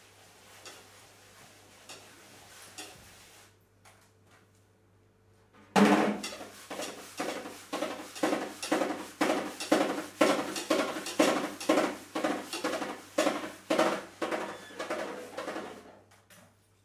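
Snare drum struck in a steady pulse of sharp hits, about two or three a second. The hits begin suddenly about six seconds in, after a few faint taps, and stop shortly before the end.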